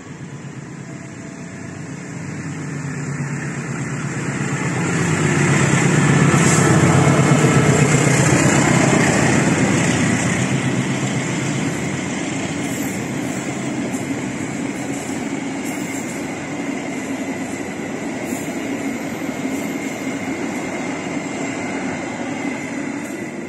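CC206 diesel-electric locomotive hauling a passenger train past at close range: the locomotive's engine and rumble build over the first few seconds and peak about six to nine seconds in. After that comes the steady rolling noise of the passenger coaches going by, with scattered clicks, until the train clears at the end.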